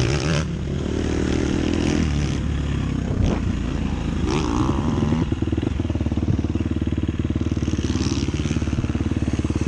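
KTM 250 SX-F's single-cylinder four-stroke engine running on a motocross track. From about five seconds in it settles into a steady, evenly pulsing note.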